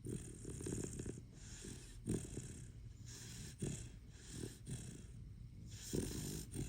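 English Setter snoring in its sleep: a steady run of snoring breaths about a second apart, a few of them louder and sharper.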